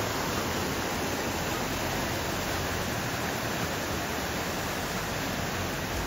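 Steady rushing of a fast-flowing river in flood, high after rain.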